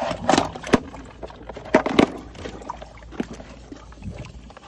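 Blue plastic submersible sump pump and its corrugated hose being handled and set down into a sump basin: several sharp knocks against the basin, with water sloshing. The pump is not yet running.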